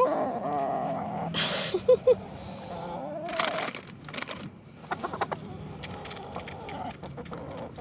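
Chickens clucking, with a few short sharp taps about five seconds in.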